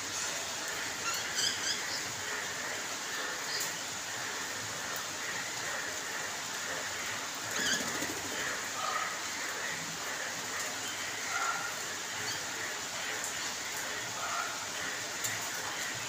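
Steady rain falling on a paved courtyard and standing water, with short bird chirps and calls breaking in every few seconds.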